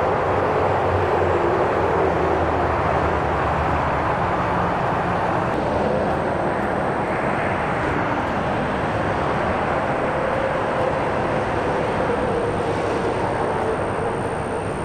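Steady, loud engine drone with a hiss over it. A low hum underneath fades out about four seconds in.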